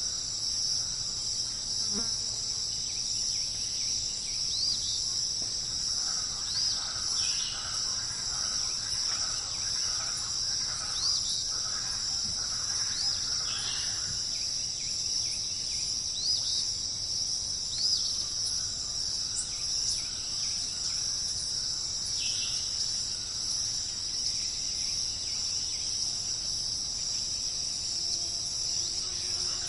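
Steady, high-pitched chorus of insects stridulating without a break, with short rising bird chirps repeated every two seconds or so and a softer bird warble in the middle.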